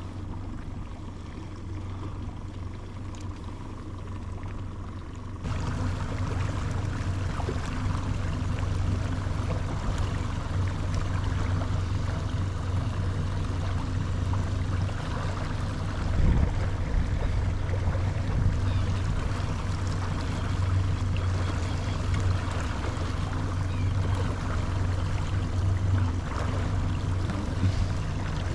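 Small fishing boat's motor running with a steady low hum. About five seconds in it gets louder and a broad rushing noise joins it, as the boat gets under way.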